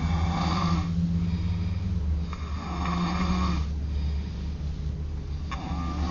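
A pet snoring in its sleep: three rasping snores, each about a second long and about two and a half seconds apart, over a steady low hum.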